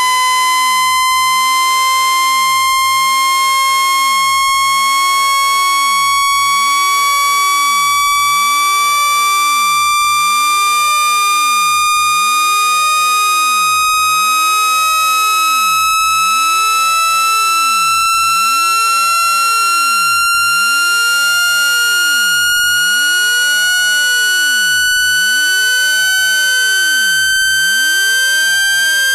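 Electronic speaker-cleaning tone: a loud, steady, buzzy tone rich in overtones that rises slowly and evenly in pitch, a sweep played through a phone speaker to shake water and dust out of it.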